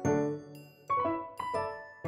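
Background music on a piano-like keyboard: struck notes ring and fade, with new notes coming in near the start, about a second in and again shortly after.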